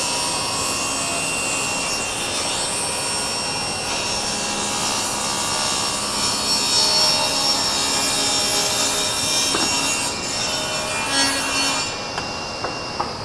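Table saw ripping a board lengthwise, a steady sawing noise of the spinning blade cutting through the wood as it is pushed along the fence. About twelve seconds in the cut is finished and the sound eases as the blade spins on free.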